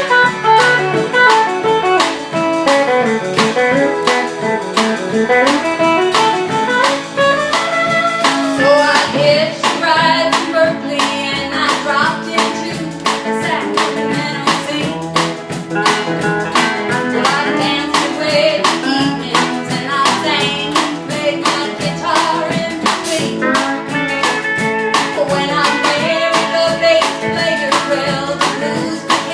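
Live country band playing a song with electric lead guitar, steel guitar, bass and drums over a steady beat.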